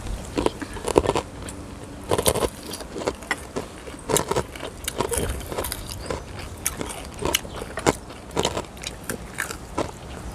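Chewing and crunching of crispy fried food, a string of irregular crackly bites.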